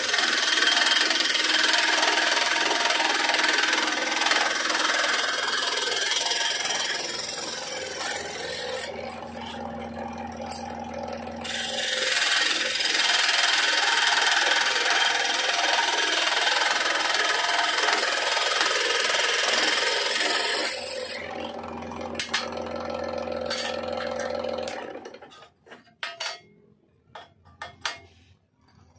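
Scroll saw running, its fine reciprocating blade rasping through a thin etched metal plate over a steady motor hum. The cutting noise eases for a few seconds about a third of the way in and again near the end, then the saw stops about 25 s in, leaving light clicks and taps as the cut pieces are handled.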